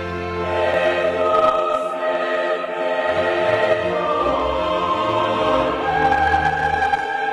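Classical choral music: a choir singing long held notes over a low bass line.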